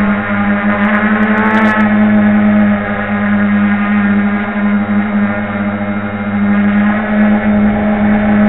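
FPV quadcopter's motors and propellers buzzing in a steady hover, heard from the camera on the drone. The pitch holds nearly constant, with a slight wavering about a second in.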